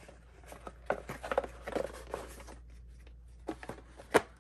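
Packaging being handled as an item is taken out of its bag or box: a couple of seconds of rustling and crinkling, then a few light taps and one sharp click near the end.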